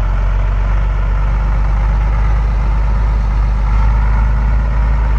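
Heavy truck engine idling steadily, a deep even rumble.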